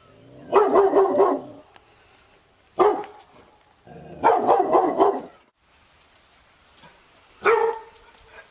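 A dog barking in four loud bouts, the first and third quick runs of several barks, the second and fourth single short barks.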